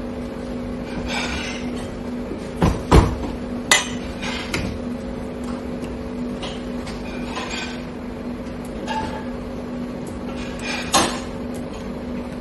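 Plastic bottle caps and a sauce bottle being handled and set down on a stainless steel counter: scattered knocks and clicks, with a cluster of sharper knocks about three seconds in and another near the end, over a steady hum.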